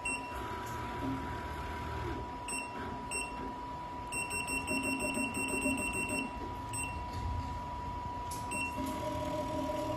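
Keypad beeps from a programmable sewing machine's control panel as keys are pressed: single short high beeps now and then, and a fast run of beeps for about two seconds in the middle. A steady thin tone runs underneath.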